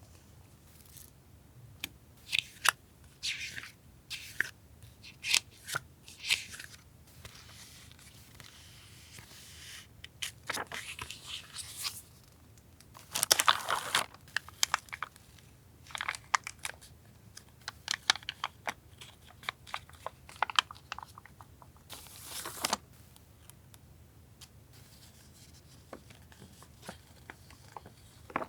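Paper and plastic packaging being handled and opened: irregular crinkling, rustling and tearing, with two longer, louder rustles about halfway through and again a few seconds later.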